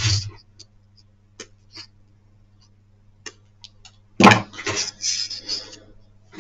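Hands handling tools and a pendant on a workbench: a few small scattered clicks, then a loud knock about four seconds in followed by a second or so of rustling and clattering. A steady low electrical hum runs underneath.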